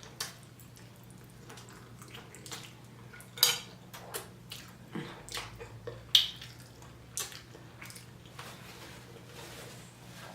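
Eating at a plate: irregular light clinks of cutlery against a dish, two sharper ones a few seconds apart, over a low steady hum.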